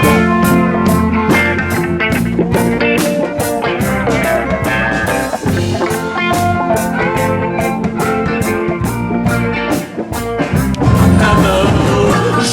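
Rock-style music with guitar over a steady beat.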